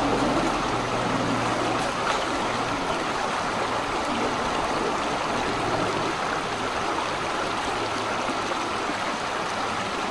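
Shallow creek running over rocks: a steady rushing of water.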